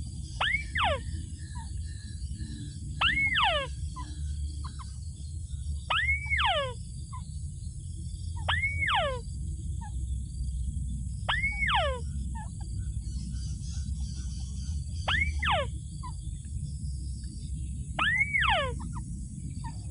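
A bird calling over and over, about every three seconds, each call a quick pair of notes that rise and then slide steeply down in pitch, over a steady low rumble.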